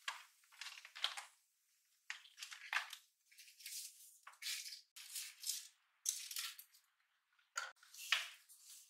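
Ribbon spools being rummaged through and lifted out of a plastic storage bin: a string of short rustles and light plastic clicks, with two sharper clicks near the end.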